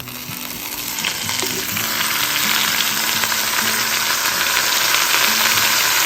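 Chicken quarters sizzling as they sear in hot olive oil in an enameled cast-iron pot, the sizzle growing louder over the first two seconds as the pieces go in, then holding steady.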